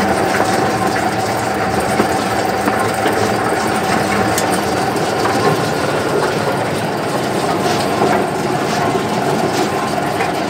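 Arecanut de-husker machine running steadily: a continuous mechanical din with a steady whine and scattered rattling clicks as the nuts and husks are churned through it.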